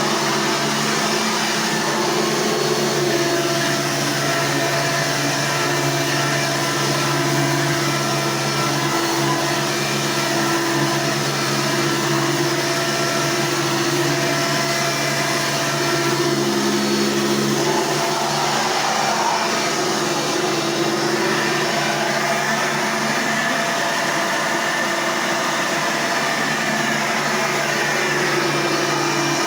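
Hoover Elite II vacuum cleaner running steadily, a continuous motor hum with fan whoosh.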